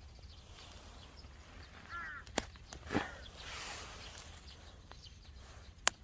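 Quiet outdoor ambience with a short bird chirp about two seconds in and a few sharp clicks or taps.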